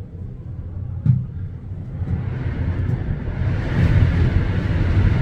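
Strong wind buffeting the microphone as a low rumble, gusting harder in the second half, with a single short knock about a second in.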